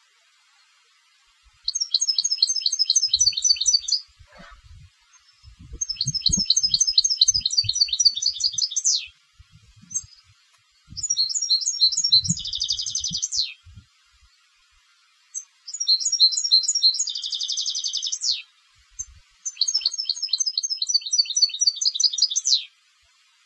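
A competition-class European goldfinch singing: five phrases of rapid, high twittering with short pauses between them, the third and fourth each carrying a dense buzzy trill near their end.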